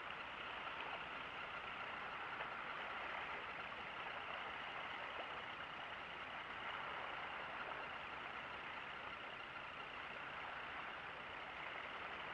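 Faint, steady engine hum with no breaks.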